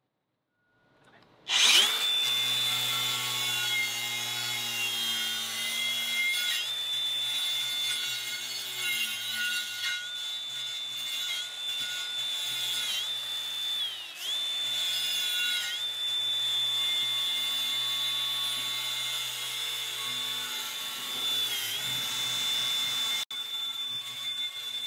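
Cordless DeWalt angle grinder with a paint-stripping disc, starting up about a second and a half in and then running steadily as it strips rust and old paint from a steel wheel rim. Its high motor whine dips briefly in pitch several times as the disc is pressed into the metal.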